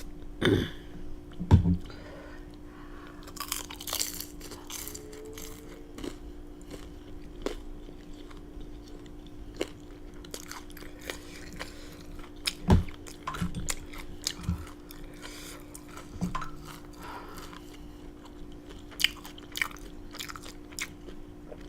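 Close-up eating sounds of a person chewing spicy black bean noodles and fried dumplings: scattered wet mouth clicks and soft crunches at an uneven pace, over a steady low hum.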